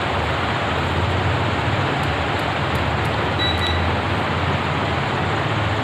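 Steady rushing background noise with a low hum, like a fan running. A few faint clicks come from test-lead plugs going into a digital clamp meter, and about three and a half seconds in the meter gives a short electronic beep.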